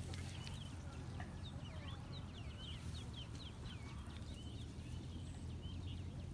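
Small birds chirping: many short, quick chirps, mostly sliding downward, overlapping one another, over a steady low rumble.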